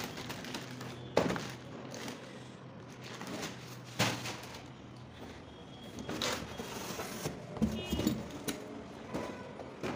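Cardboard carton and plastic packaging being handled: rustling and scraping with several knocks, the sharpest about a second in and at four seconds, and a cluster of smaller ones near the end.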